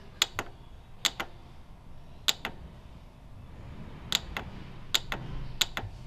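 Push buttons on a La Marzocco GS3 espresso machine's control panel being pressed six times, each press a sharp double click of press and release, while cycling through the programming menu.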